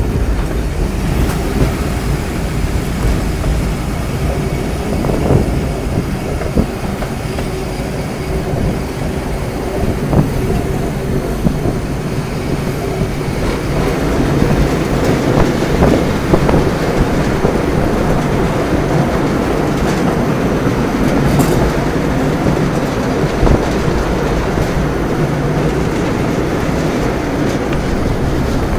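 A passenger train's carriages running along the track at speed: a steady wheel-on-rail rumble that grows a little louder about halfway through.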